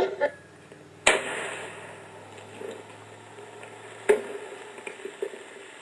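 Baseball bat striking a soda can: a sharp knock about a second in, followed by a short fading hiss, and another sharp knock about four seconds in.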